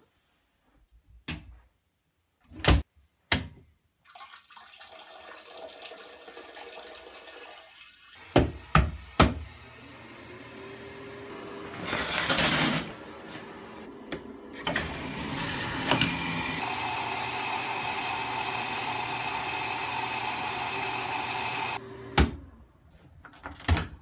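Bathroom handling sounds: several knocks and clicks, a shower curtain pulled along its rail, then water running steadily from a shower or tap until it is cut off suddenly. A door knob clicks near the end.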